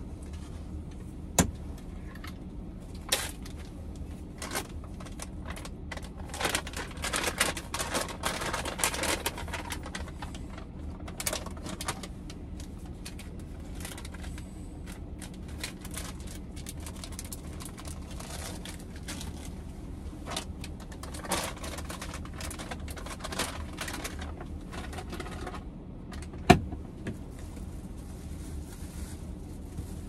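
Plastic bags rustling and crinkling as laundry is packed, in two busy spells, with several sharp knocks and clicks, the loudest near the end, over a steady low hum.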